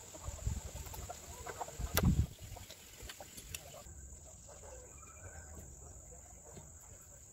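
Faint clicks and knocks of a small rubber hose being pushed onto a fitting at a three-wheeler's carburettor, with one louder knock about two seconds in. A steady high insect trill runs underneath, and a hen clucks faintly.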